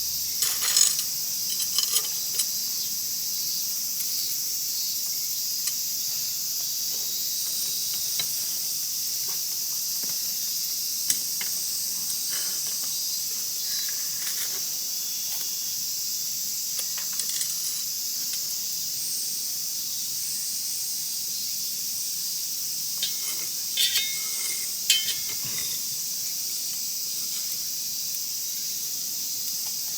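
Wood fire crackling with sparse sharp pops, a few close together about a second in and again around 24 seconds, over a steady high hiss.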